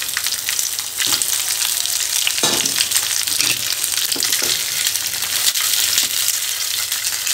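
Steady sizzle of hot oil in a nonstick frying pan holding steamed rice balls with a tempering of mustard seeds, green chillies and curry leaves. A silicone spatula stirs and scrapes through them, giving a few light knocks against the pan.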